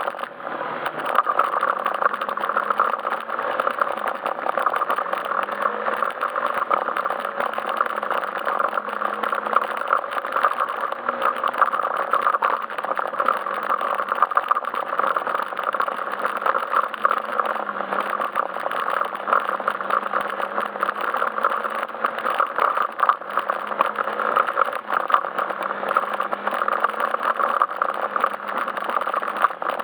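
Yamaha Majesty S scooter's single-cylinder engine running at a steady, gently wavering speed under way, with continuous rattling and clattering from riding over a rough forest road.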